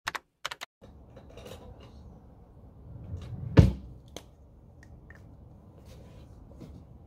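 Small clicks and knocks from an orange felt-tip pen and a book being handled at a desk, with one louder knock about three and a half seconds in and scattered lighter ticks after it.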